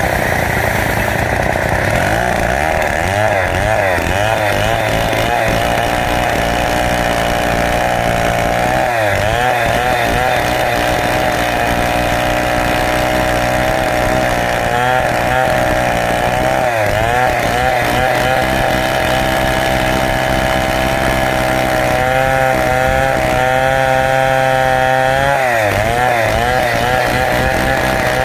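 Stihl chainsaw ripping lengthwise through a large teak log, its engine running steadily under load with its pitch repeatedly dipping and recovering as the chain bites into the wood.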